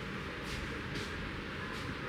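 Head massage by hand: faint rubbing strokes on hair and scalp, roughly twice a second, over a steady background hiss.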